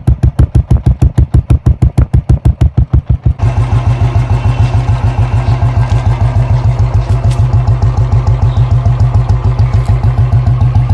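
Royal Enfield single-cylinder motorcycle engine running at idle through an aftermarket silencer, a steady thump of about eight beats a second. A little over three seconds in it changes abruptly to a quicker, less distinct beat with more rasp, which then runs evenly.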